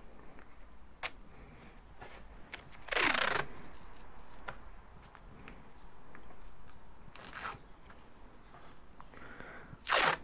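Adhesive tape pulled off the roll in three short rips, the first about three seconds in and the loudest right at the end, with small crinkles and clicks of cardboard being handled between them.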